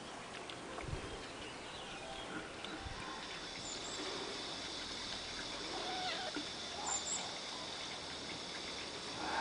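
Eight-week-old kittens mewing faintly a few times, over a steady high hiss.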